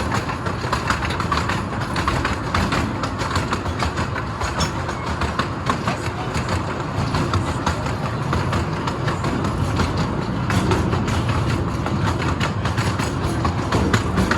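Zoo train rolling along its track, heard from aboard: a steady rumble and rattle with rapid, irregular clicks of the wheels on the rails.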